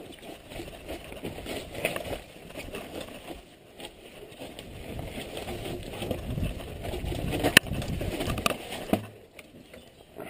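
Mountain bike riding down a rough dirt trail: tyres rolling over dirt and stones and the bike rattling, with a sharp knock about seven and a half seconds in.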